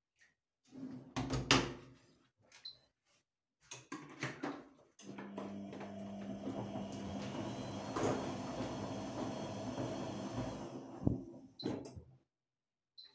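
Electrolux top-loading washing machine being shut and started: knocks and clicks of the lid and dispenser, short electronic beeps from the control panel, then from about five seconds in a steady hum with a rushing noise for about six seconds that stops, followed by more clicks and beeps as the panel buttons are pressed.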